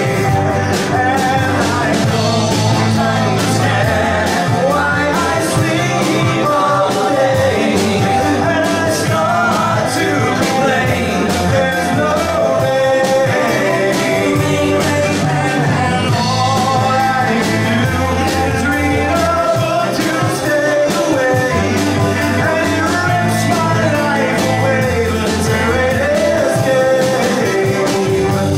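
A small live band playing a song, with a man singing lead into a microphone over electric bass and drums.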